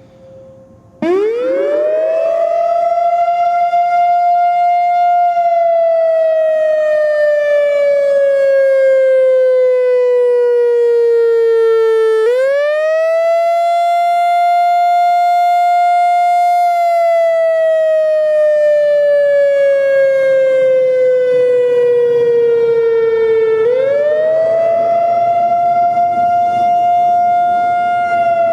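Whelen WPS-3000-series electronic tornado siren sounding a loud wail. It comes on abruptly about a second in and rises quickly to a held pitch, then slowly falls for several seconds before snapping back up, repeating about every eleven seconds.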